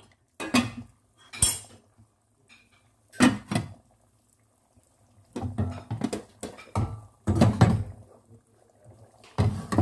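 Kitchen utensils and a cooking pot clattering: a series of short, irregular knocks and scrapes, busiest a little past the middle.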